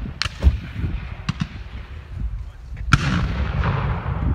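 Scattered black-powder gunshots from reenactors firing blanks: several sharp reports, the loudest about three seconds in, followed by a rolling echo.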